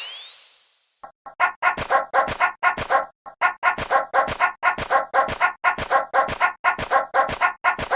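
A fast, steady run of short dog-like barks or yaps, about four a second, starting about a second in. Before it, the tail of a ringing sound-effect sweep fades out.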